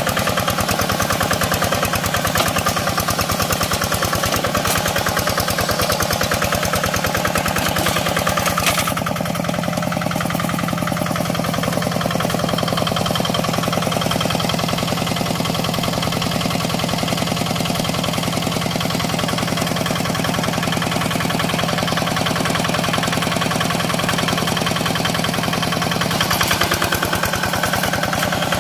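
Single-cylinder diesel engine of a Quick Impala two-wheel hand tractor running steadily, with rapid, even firing pulses. It eases off slightly about nine seconds in and picks up again near the end.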